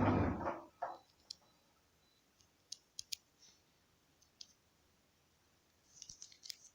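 A steady sound fading out within the first half second, then scattered faint clicks and taps, single or in twos and threes, with a quick run of clicks near the end.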